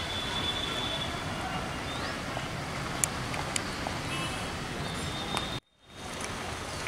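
Steady outdoor background hiss, with a few faint high chirps and clicks. The sound drops out for a moment about five and a half seconds in.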